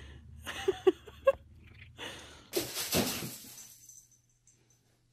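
A few short pitched sounds and clicks over a low hum, then, about two and a half seconds in, a kitten scratching in granular cat litter: a gritty rustling scrape lasting about a second before it goes quiet.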